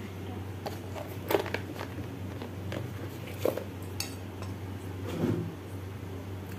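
Stainless steel kitchenware clinking a few times as a steel bowl of flour is handled, the sharpest clink about a second and a half in and another near the middle, with a duller knock near the end, over a steady low hum.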